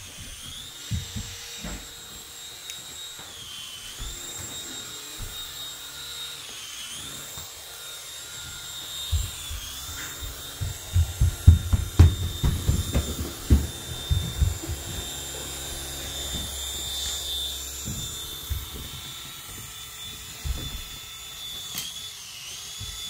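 Flying toy robot's tiny electric rotor motors whirring in a steady high whine that dips in pitch now and then. About halfway through comes a run of thumps and knocks as it bumps down onto the rug with its rotors still spinning.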